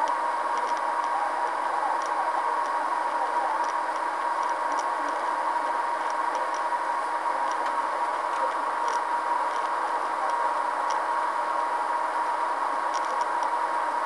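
Steady road and engine noise inside a moving car's cabin, with a constant hum and faint, irregular light ticks scattered through it.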